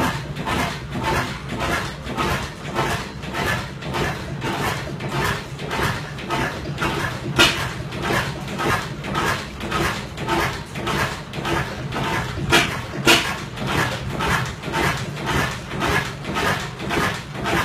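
Vintage stationary oil engines running, the 1908 5.5 hp Austral among them: an even beat of clanking knocks, about two and a half a second, over a steady low hum. A few louder sharp knocks stand out, one about seven seconds in and two close together about thirteen seconds in.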